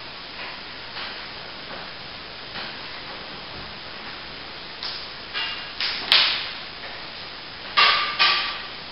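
Metal plastering tools scraping and tapping as cornice cement is worked and scraped off the blade: a string of short scrapes and knocks, faint at first and louder from about halfway through. The last two, near the end, carry a brief metallic ring.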